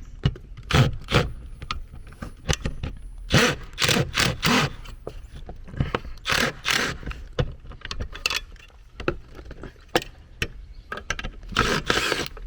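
Tools and hands working on the wiring and screws of a metal AC disconnect box: irregular clicks, knocks and scrapes of metal and wire.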